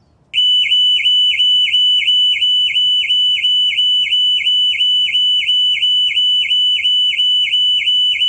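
Car alarm siren sounding: a loud high tone that dips briefly in pitch about three times a second, in an even, rapid repeating pattern that starts abruptly.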